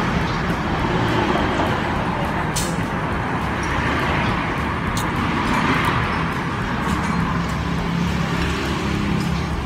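Steady noise of road traffic, with a single sharp click about two and a half seconds in.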